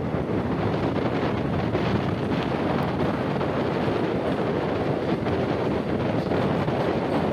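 Steady wind rushing over the microphone, held out of a moving passenger train, with the train's running noise underneath.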